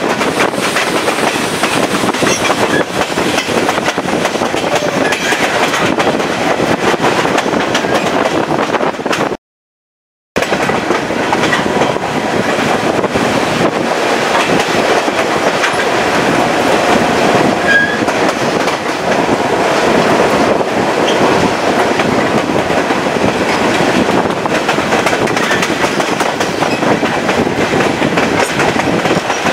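Chepe passenger train running, heard from a coach window: loud, steady wheel-on-rail noise. The sound cuts out completely for about a second a third of the way in.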